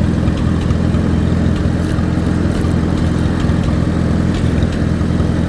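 1955 Allis-Chalmers WD-45 tractor engine running steadily at low speed as the tractor is backed out.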